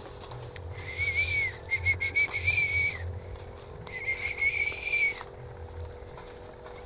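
A 4-metre sendaren (kite hummer bow) on a large pegon kite sounding in the wind: a high buzzing tone that swells in from about a second in for two seconds, breaks off, and comes back for about a second near the middle. A faint steady lower hum runs underneath.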